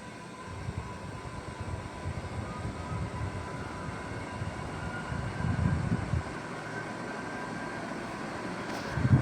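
Super Asia Golden Series 56-inch ceiling fan running, with a steady humming tone over a low rumble of moving air that swells and fades unevenly.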